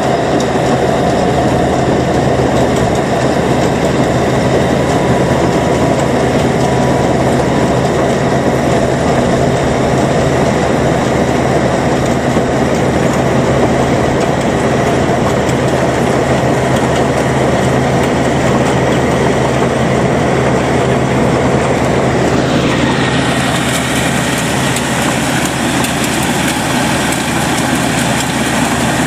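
Rice combine harvesters running steadily while cutting and threshing rice, a continuous machine drone; about 23 seconds in the sound changes to a different machine's drone.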